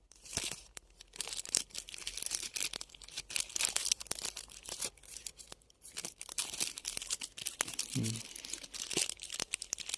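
Plastic packaging crinkling and rustling with many small irregular clicks, as a new fishing lure is handled and taken out of its pack. A short vocal sound about 8 seconds in.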